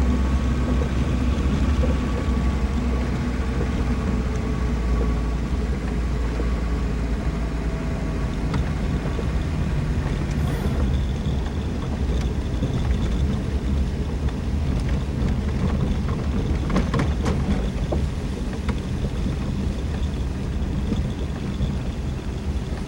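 A motor vehicle driving: a steady low engine and road rumble with a faint whine that slowly falls in pitch during the first half, and a few light clicks.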